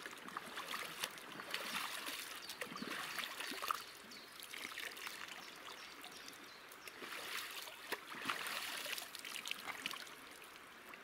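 Water trickling and splashing, swelling and easing, with small clicks and knocks scattered through it.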